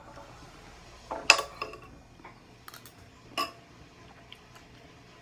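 Cutlery clinking against a plate during a meal: a few sharp clinks, the loudest a little over a second in and another about three and a half seconds in.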